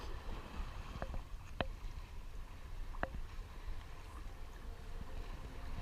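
Water washing against the rocks, with a steady low rumble of wind on the microphone. Three short, sharp clicks come about one, one and a half, and three seconds in.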